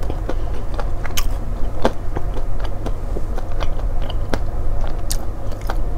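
Close-up chewing of a date stuffed with salted butter and almond, with many small, irregular mouth clicks and soft crunches, picked up by a clip-on lapel microphone.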